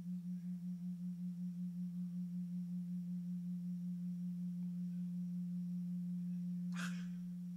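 Low, steady electronic hum from a Fisher-Price PXL2000 camcorder hooked directly to a TV, heard through the TV's speaker. It pulses about four times a second at first, then settles into an even tone. A short rush of noise comes near the end.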